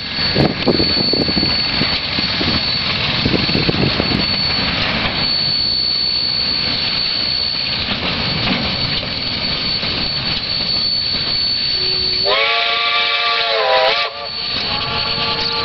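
Steam locomotive Jb 1236 working a freight train: the noise of its exhaust and the running train, then about twelve seconds in its whistle sounds for about two seconds, a chord of several notes that slides up as it opens. A second, fainter whistle starts near the end.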